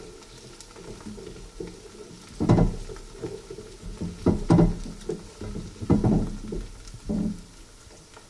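Wooden spatula stirring sliced onions and whole spices frying in ghee in an aluminium pot, scraping and knocking against the pot several times over a low sizzle.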